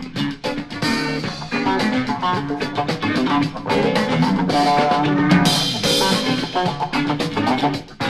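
Instrumental band music: guitars over a drum kit, with a cymbal wash about two thirds of the way in.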